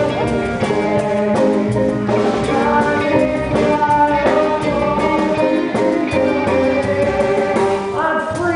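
Band music with guitar prominent, notes changing in a steady rhythm with percussive hits.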